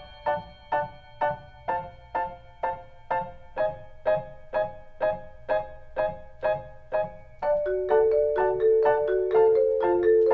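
Orchestral film score: light staccato notes on piano and mallet percussion repeating about twice a second. About seven and a half seconds in, held lower notes enter beneath them.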